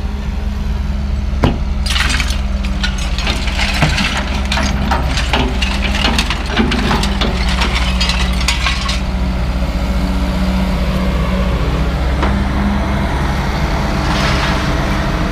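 Cast iron scrap clattering and crashing for several seconds as it is unloaded from a trailer, over the steady running of a heavy engine.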